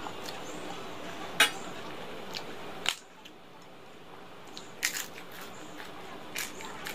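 Eating by hand from a steel plate: sharp clicks as fingers and rings strike the plate while mixing rice, then a few crisp crunches of fried papad being bitten. The loudest click comes early, and the crunches come about five seconds in.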